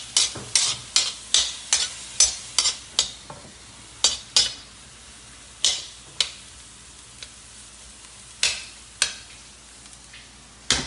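Spatula scraping and tapping against a stainless steel wok as chopped garlic sautés with a faint sizzle. There are quick strokes, about three a second, for the first three seconds, then only a few spaced-out strokes.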